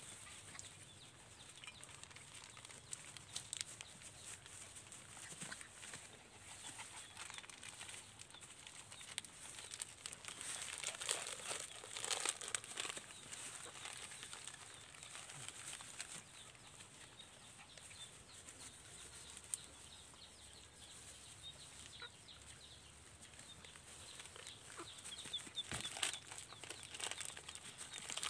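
Puppies scuffling and rustling over grass and dry leaves, with a hen clucking close by. The scuffling is busiest about halfway through.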